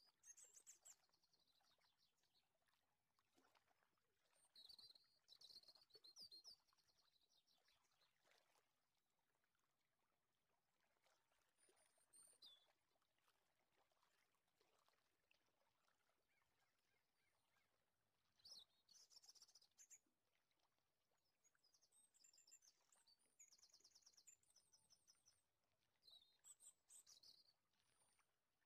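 Faint birdsong: short bursts of high chirps and rapid trills, repeated on and off over near silence.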